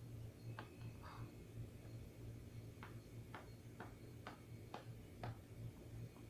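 Faint sharp ticks, spaced about half a second apart for a run in the middle, over a low steady hum.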